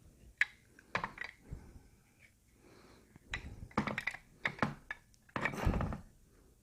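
Hi-Point 995 carbine parts handled during reassembly: scattered clicks and knocks of metal on metal and plastic as the barrel is fitted and worked into line for its pin, with a heavier knock near the end.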